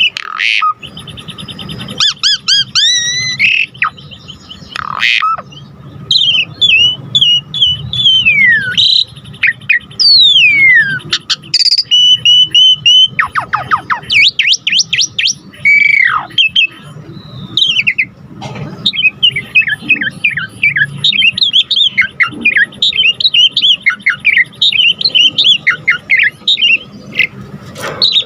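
A jalak suren (pied starling) singing without pause: a varied stream of clear whistles, quick rising and falling slurs and fast chattering phrases, full of copied 'isian' phrases.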